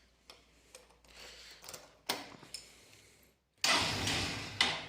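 Motorcycle cold-start attempt: a few light clicks, then, about three and a half seconds in, the engine cranks and coughs for about a second without settling into an idle, reluctant to start in the morning cold.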